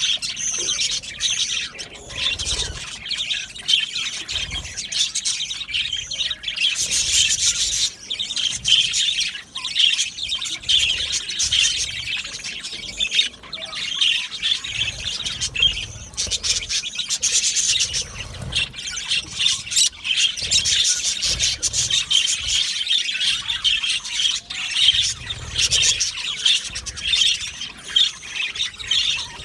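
A colony of budgerigars chattering and chirping continuously, many birds calling at once in a dense, unbroken warble.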